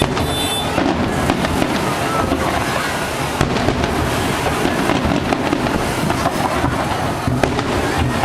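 Fireworks going off in a dense, continuous crackle of many rapid bangs.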